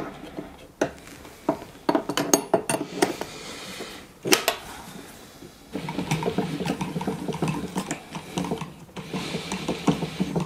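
Metal clinks and knocks of an open-end spanner working on a router table's collet nut, then from about six seconds in a steady run of small clicks as the router lift's height-adjustment crank is turned to set the bit height.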